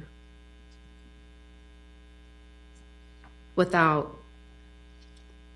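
Steady electrical mains hum in the recording: a low, even buzz made of many evenly spaced steady tones. A woman speaks a single word about three and a half seconds in.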